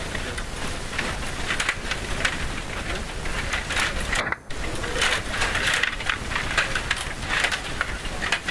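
Control rods and plastic players of a Stiga Play Off rod table hockey game clicking and rattling rapidly as the rods are pushed and twisted during play, with the puck knocking against the figures and boards. The sound cuts out briefly a little after four seconds in.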